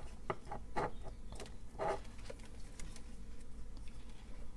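A handful of short, light clicks and rustles in the first two seconds or so as a string of LED lights with small plastic ball caps and its wire is handled, then only quiet room tone.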